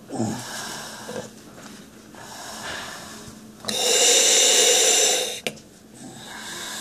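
Deep breaths drawn through a gas-and-air (Entonox) demand-valve mouthpiece, each inhale hissing through the valve, taken for pain relief. There are several breaths, and the loudest comes about four seconds in, lasting about a second and a half.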